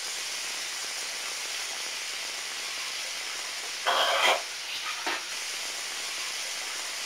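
Water running from a bathroom sink tap in a steady hiss. A brief louder burst comes about four seconds in, and a smaller one about a second later.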